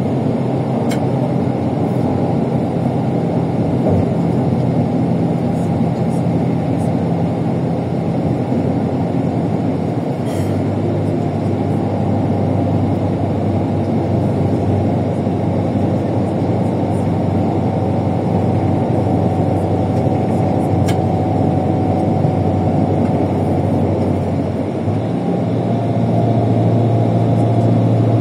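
Bus engine and road noise while driving: a steady low hum that grows louder near the end as the engine works harder.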